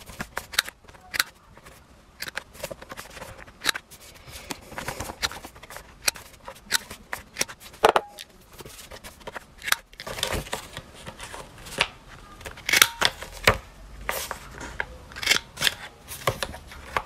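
Handheld corner-rounder punch snapping through the corners of paper art prints, a sharp click with each cut at irregular intervals, with the rustle of the prints being handled and turned between cuts.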